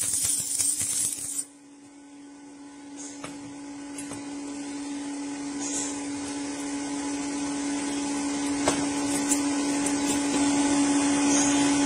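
Electric arc welding on thin galvanized steel, the arc crackling and hissing, then cutting off suddenly about a second and a half in. A steady motor-like hum follows and grows gradually louder.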